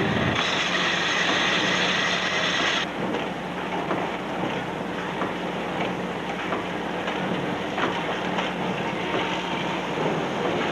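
Automated factory machine tools running, a steady mechanical clatter with faint irregular clicks over a low hum. A brighter hiss sits on top for the first three seconds or so.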